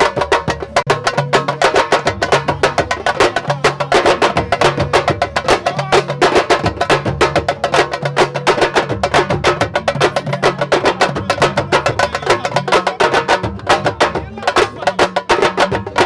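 Senegalese sabar drum ensemble playing a fast, dense rhythm of many sharp strokes a second, with no break.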